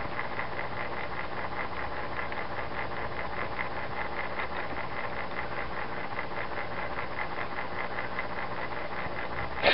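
Steady mechanical hum with a fast, even pulsing, ending in a single sharp click.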